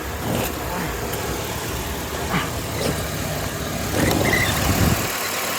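2016 Honda Civic engine idling steadily on fresh oil just after an oil change, left running to check for leaks. It grows briefly louder about four seconds in.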